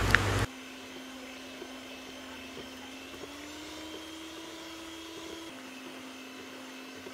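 Electric hand mixer running steadily, beating eggs in a plastic bowl: a steady motor hum that rises slightly in pitch about three seconds in and drops back a couple of seconds later. It is louder for the first half second, then drops abruptly.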